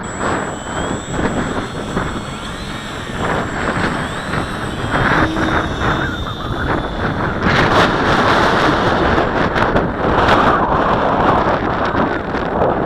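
Gusty wind buffeting the microphone, with the thin, faint whine of an electric RC flying wing's motor and propeller rising about half a second in as it is launched, then wavering in pitch as it flies.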